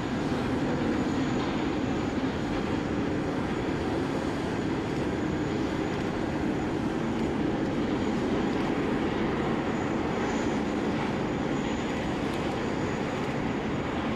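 Airliner jet engines running, a steady low roar with no rise or fall across the airfield.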